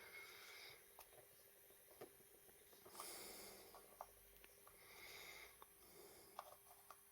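Near silence: faint breathing through the nose and a scattering of small, quiet plastic clicks and ticks from a clip-fastened keypad case being handled and pried.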